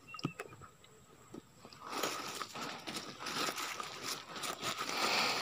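A few light clicks, then from about two seconds in a steady rustling and crackling, as of things being handled and shifted in the boat.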